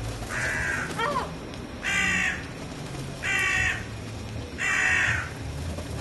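Hooded crow giving four harsh caws, about one every one and a half seconds. A yellow-legged gull gives a short gliding call about a second in.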